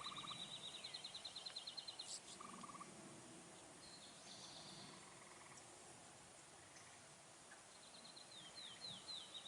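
Faint birdsong: a song of a few down-slurred notes running into a fast trill, heard at the start and again near the end, with short buzzy trills between.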